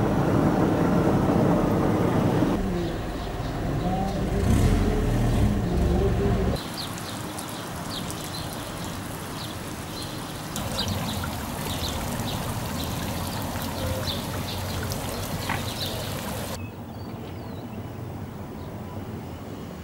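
Outdoor location sound in three parts: a loud low rumbling noise for the first six seconds or so, then small birds chirping repeatedly over a quieter hiss, and finally a quieter hiss near the end.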